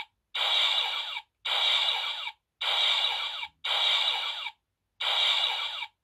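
Bandai DX Raising Sword toy playing a repeating electronic sound effect through its small speaker: five identical hissy bursts, each just under a second long, about one a second, each cutting off sharply.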